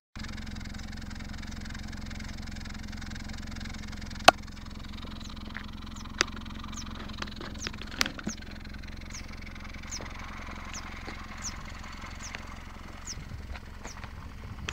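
Nissan Qashqai engine running steadily, a low hum throughout. A few sharp clicks come in the first half, and from about a third of the way in a short high falling chirp repeats a little faster than once a second.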